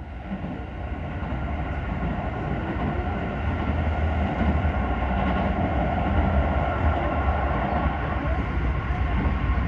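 Tokyo train running: a steady low rumble that builds over the first few seconds, then holds.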